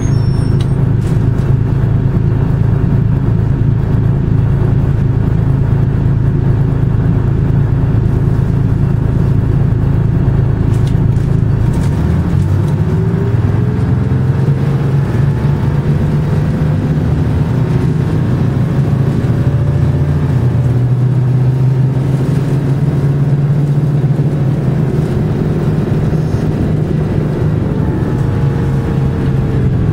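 Detroit Diesel 6V71N two-stroke V6 diesel of a 1982 GMC 'Fishbowl' transit bus, heard from inside the cabin. It runs steadily at low speed, then about twelve seconds in the bus pulls away and the engine note climbs as it accelerates.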